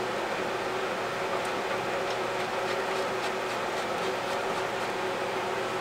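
A steady machine hum with a couple of low steady tones runs throughout. Over it come faint light metallic clicks, every half second or so, from a bolt and steel engine-mount bracket being fitted by hand.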